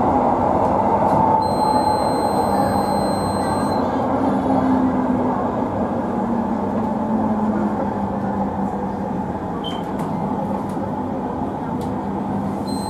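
LRT Jabodebek electric light-rail train running on its elevated track, heard from inside the front cab: a steady rumble of steel wheels on rail with a motor hum, growing slightly quieter as the train slows. A thin high whine sounds for about two seconds, starting a second and a half in.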